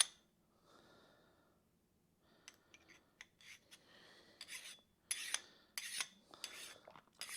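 Small hand file scraping across metal engine parts, taking off burrs and high spots. Faint, light strokes in the first half, then a run of sharper strokes, about one every 0.7 s, from about five seconds in.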